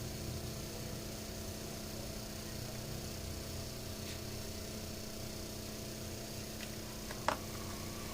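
Steady low electrical hum, with a single sharp click about seven seconds in.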